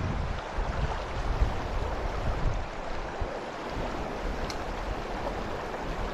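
Steady rush of fast river current, with gusting wind buffeting the microphone in an uneven low rumble.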